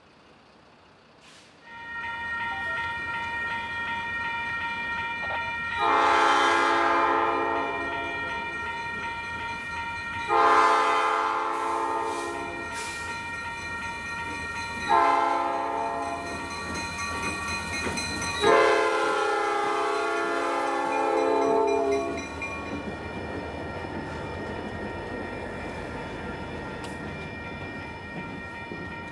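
Two EMD SD40 diesel locomotives approach and sound their air horn in four blasts, long, long, short, long: the grade-crossing signal. After the horn the locomotives pass and the freight cars roll by with a steady rumble of wheels on rail.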